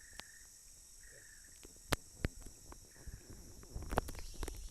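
Tropical forest ambience: a steady high drone of insects, with a short call repeating about once a second. Several sharp clicks and some rustling come near the end.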